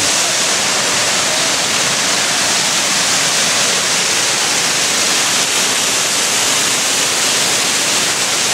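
Waterfall rushing at close range: a loud, steady, unbroken hiss of falling water.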